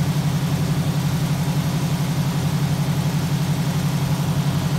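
1965 Ford Mustang's engine idling steadily with an even, rapid pulse and no revving.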